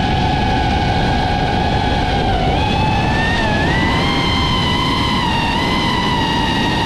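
Racing quadcopter's electric motors and propellers whining at a high pitch over heavy wind rush. The pitch dips about two and a half seconds in and climbs again a second later as the throttle changes.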